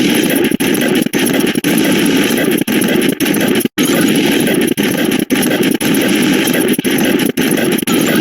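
A loud, dense din of many overlapping digital sound effects piled on one another, broken by short dips about every half second and one brief total dropout near the middle.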